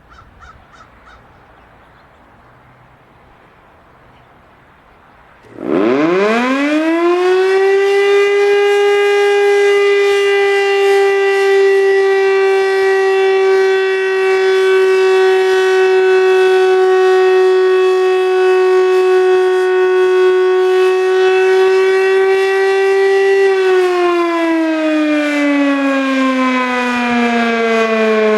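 American Signal OM-117 electromechanical outdoor warning siren sounding a short alert. About six seconds in it winds up quickly to one steady wail, holds it for about fifteen seconds, then starts winding down with falling pitch near the end. Its motor is one the uploader reports is dying.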